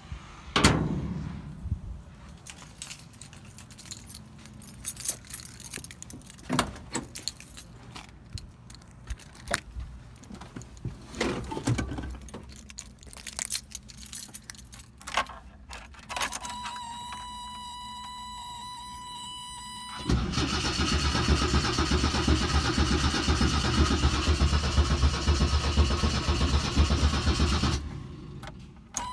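Car hood slammed shut, then keys jangling and clicking. A steady high warning tone comes on a little past halfway. It gives way to the starter cranking the 1979 Toyota Corona's engine for about eight seconds without it catching: a crank-no-start, with spark but no fuel reaching the new mechanical fuel pump.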